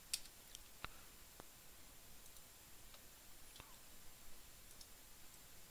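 Near silence with a few faint, short computer mouse clicks.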